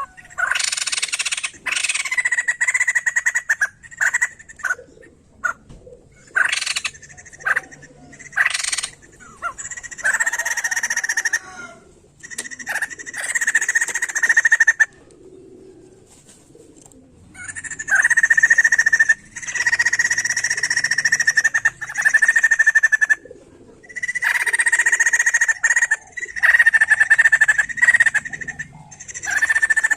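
White-crested laughingthrush (poksay jambul) calling in loud bursts of a few seconds each, separated by short pauses. A held high note runs through each burst, with sharper chattering notes above it.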